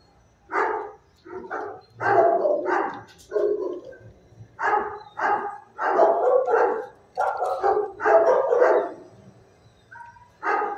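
Dog barking over and over, about two barks a second, with a pause near the end.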